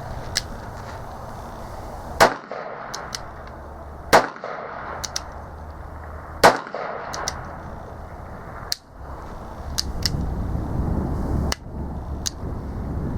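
Three shots from an Uberti 1875 Schofield revolver in .45 Long Colt, about two seconds apart, with lighter clicks between them. A low rumbling noise builds near the end.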